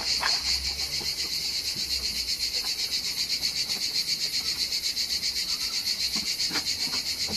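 Insects chirping outdoors: a steady, high-pitched trill pulsing at a fast, even rate, with a few faint low bumps from handling the plastic bottle.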